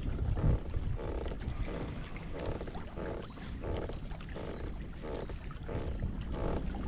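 Kayak being driven through the water by a steady rhythm of strokes, about one every two-thirds of a second, over a low rumble of wind on the microphone.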